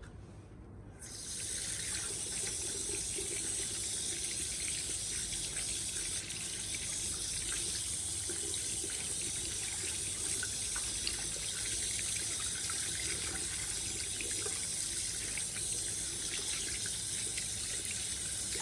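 Water running steadily from a tap into a sink, turned on about a second in, as hands are washed.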